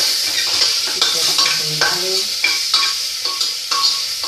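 Chopped tomatoes and masala sizzling in an open pressure cooker pot, with a metal spatula stirring and scraping against the pot's sides in quick repeated strokes.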